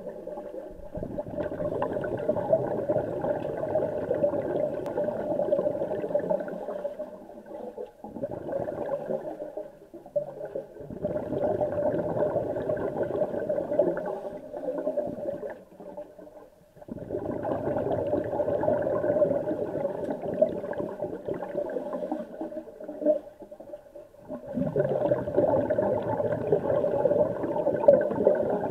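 Underwater recording of scuba regulator exhaust bubbles gurgling in long bursts of several seconds, with short quieter breaks between breaths about every six to eight seconds.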